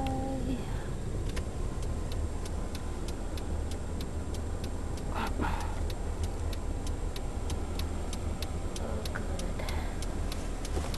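A car's turn-signal indicator clicking steadily, about two to three clicks a second, over the low rumble of the idling car heard from inside the cabin.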